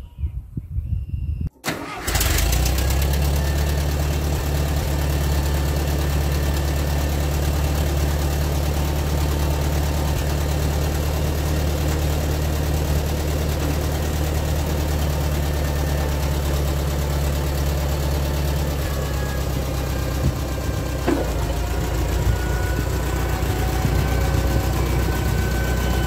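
1967 International Harvester 424 tractor engine running steadily at idle, coming in about two seconds in. There is a single click about three quarters of the way through, with a slight shift in the engine note.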